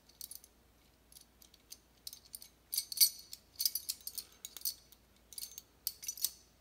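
Small metal brake parts clinking and clicking in hand as a nut and washers are fitted onto a 1975 Ski-Doo Olympique's cable-operated disc brake caliper. A few light clicks at first, then busier clinking from about two seconds in, loudest around three seconds.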